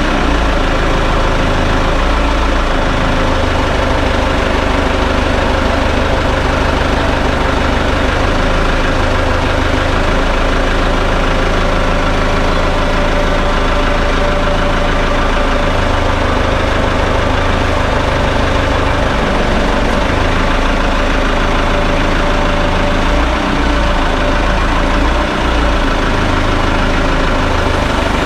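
A heavy vehicle engine running steadily without a break, its low drone shifting in strength a few times.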